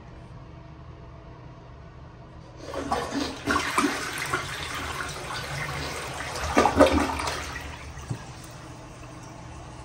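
Crane Plumbing Elite elongated ADA toilet flushing: a rush of water starts about two and a half seconds in, gurgles loudest near the end of the flush as the bowl empties, and dies down about eight seconds in.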